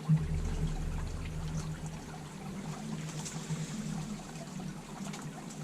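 Honeybees humming steadily around an open top-bar hive, a low even drone under a hiss of wings. There is a single knock just after the start.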